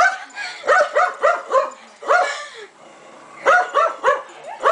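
Small dog barking repeatedly: quick bunches of short, sharp barks, with a pause of about a second in the middle.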